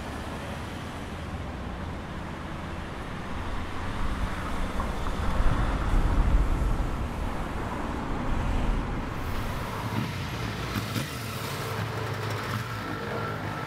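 Road traffic noise: a steady rumble of cars on a city street, swelling louder about five seconds in as a vehicle passes.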